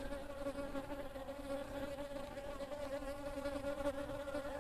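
Honey bees buzzing: a steady hum that holds the same pitch throughout.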